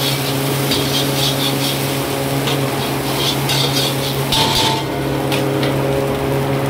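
Egg frying in oil in an iron wok while a metal ladle stirs and scrapes it, giving irregular bursts of scraping and sizzling. A steady low hum runs underneath.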